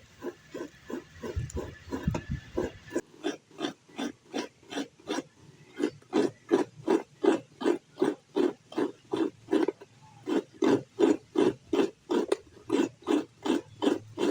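Food being worked in a bowl or pot for dengu (green gram) chapati, in steady rhythmic strokes about two to three a second that grow louder about six seconds in.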